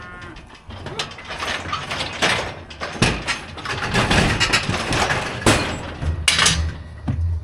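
Steel cattle-handling equipment clanking and rattling in irregular knocks as cattle are worked through it. A low steady hum comes in about six seconds in.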